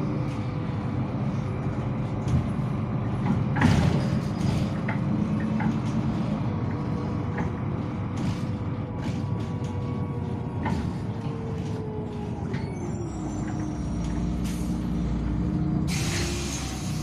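Articulated city bus running, heard from inside the passenger cabin: a steady low drivetrain hum with a faint whine that dips in pitch about twelve seconds in, and clicks and rattles from the body throughout. There is one sharper knock about four seconds in, and a hiss of air starts near the end.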